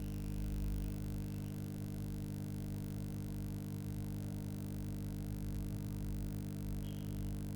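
Steady electrical hum, an even stack of low tones that does not change, with a faint brief high tone near the end.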